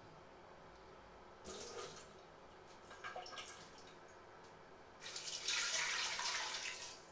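Water poured from a plastic measuring jug into a stainless steel pot holding a piece of raw beef, splashing for about two seconds near the end. It is preceded by two short handling noises.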